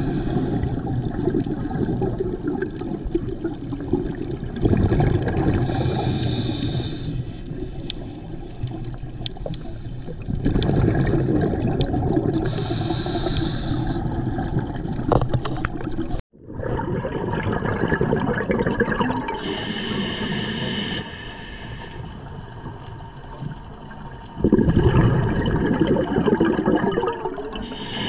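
Underwater sound of a scuba diver breathing through a regulator: a rush of exhaled bubbles and hiss that swells and fades every several seconds. The sound drops out for a moment about sixteen seconds in.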